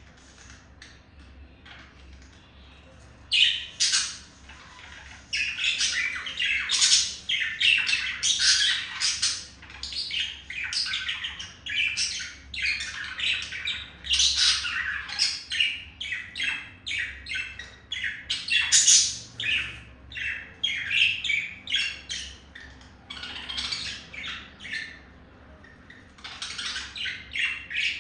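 Male budgerigar's courtship warble: a fast, dense stream of chirps and squawks that starts about three seconds in and goes on with only brief pauses.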